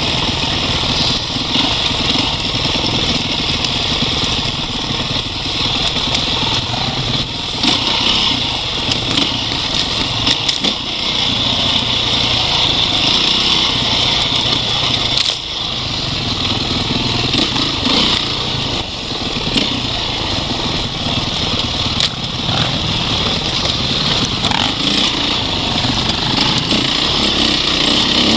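Off-road dirt bike engine running steadily under load as the bike rides a rough dirt trail, with scattered sharp knocks from the bike over the terrain.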